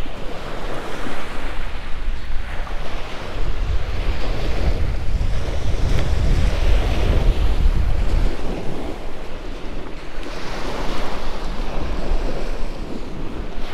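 Small waves washing up a sandy beach, with wind rumbling on the microphone, heaviest over the first two-thirds.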